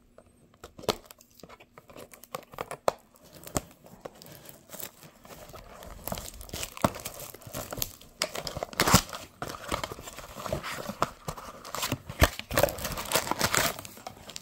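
Plastic shrink wrap on a cardboard trading-card box being slit with a pen, then torn off and crinkled, and the box flaps opened. Scattered scratches and taps at first, turning into dense crinkling and tearing about six seconds in, with a few sharp clicks.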